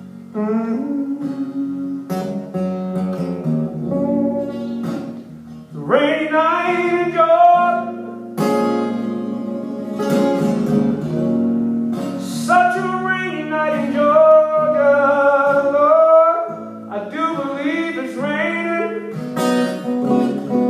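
A man singing to his own acoustic guitar: strummed and plucked chords, with the voice growing louder about six seconds in and holding long, wavering notes.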